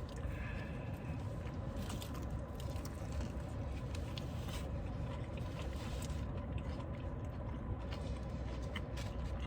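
Quiet chewing and mouth sounds of people eating fried chicken, with a few faint crunchy clicks, over a steady low rumble and hum in the background.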